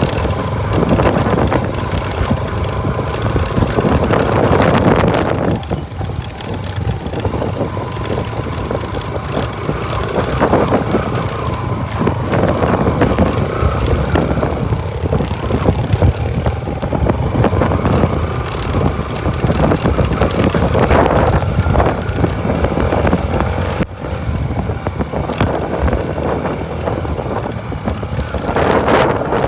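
Motorcycle engine running while the bike is ridden along a rough dirt track, with wind on the microphone; the level rises and falls with the throttle.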